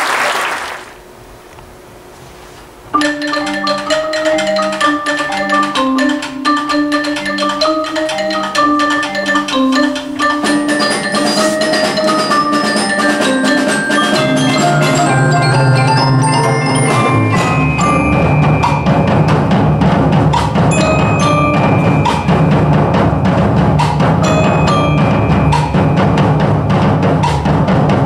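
Applause dies away in the first second, and after a short pause a percussion ensemble starts a piece: marimbas and vibraphone play struck mallet notes. From about halfway in, low drums join and the music grows denser.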